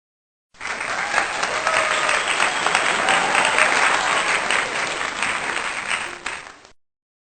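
Crowd applause, dense clapping with a few faint voices in it, starting abruptly about half a second in and cutting off shortly before the end, like an applause clip added to close the video.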